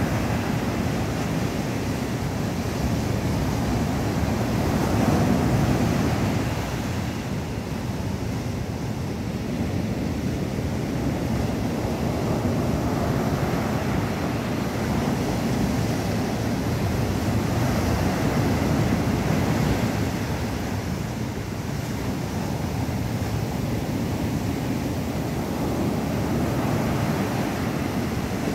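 Ocean surf breaking and washing over rocks and sand in a continuous wash that swells and eases every several seconds as each wave comes in.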